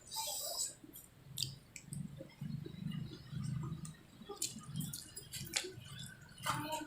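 A person chewing grilled carp close to the microphone: soft, irregular wet chewing and squishing with small mouth clicks.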